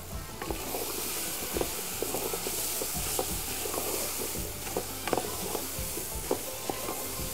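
Chopped vegetables sizzling in a large aluminium pot while a wooden spoon stirs them, knocking and scraping against the pot in irregular clicks over a steady frying hiss.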